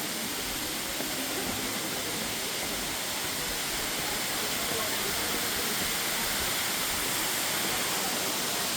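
Waterfall rushing: a steady wash of falling water that grows slightly louder toward the end.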